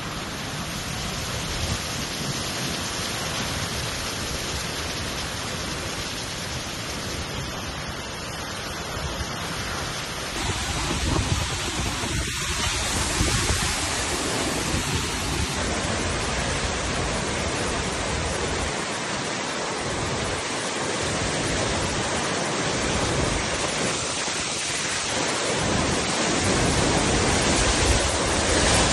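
Hurricane-force wind blowing in a dense, steady rush of noise that swells in gusts and grows louder toward the end.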